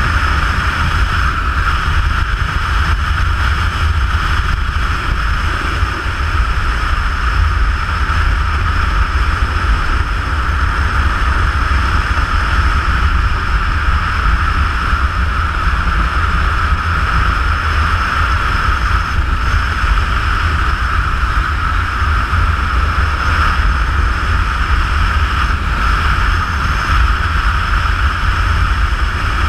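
Steady rush of wind and low road rumble on the microphone of a camera riding on a moving motorcycle at road speed.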